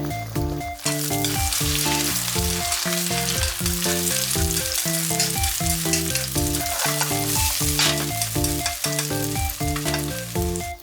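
Food frying in a pan, a dense sizzle that starts about a second in, over background music with a steady pattern of notes.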